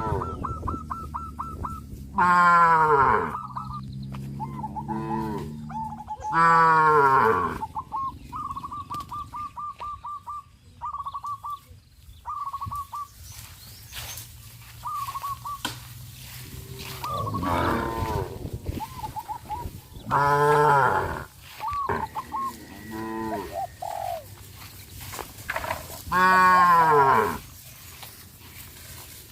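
Cattle mooing: four long, loud moos that fall in pitch as they end, with quieter moos between them.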